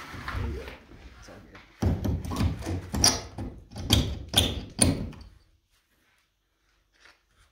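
Claw hammer striking a wooden roof board, a quick run of sharp knocks that stops about five seconds in.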